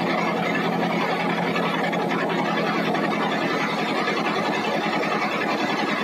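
Log bandsaw mill running steadily: a constant hum under dense mechanical noise.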